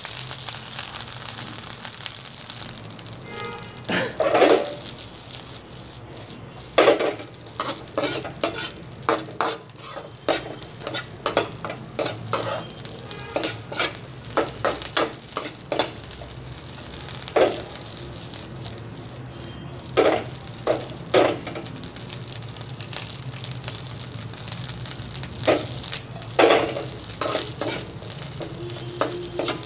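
Fried rice sizzling in a wok while a metal spatula scrapes and knocks against the pan, in irregular runs of quick strokes with pauses between them, under a steady frying hiss.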